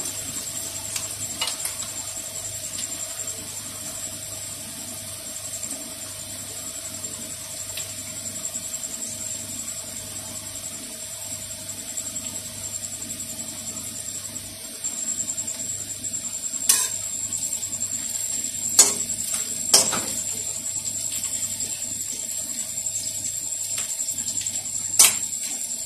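Chopped onion and tomato frying in oil in a steel kadhai, a steady sizzle, while a metal ladle stirs. In the second half the ladle knocks against the pan four times, sharp and short.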